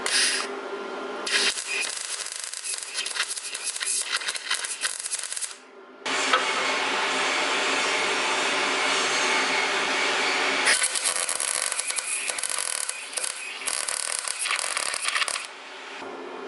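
Metalworking on a steel exhaust pipe: scraping and clattering of tools on metal, then a steady even hiss lasting about four and a half seconds, then more crackly clattering that fades near the end.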